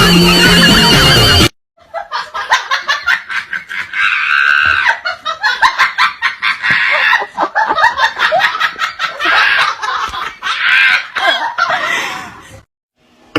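Music cuts off about a second and a half in. Then people laugh and shriek over many sharp knocks and taps, which stop shortly before the end.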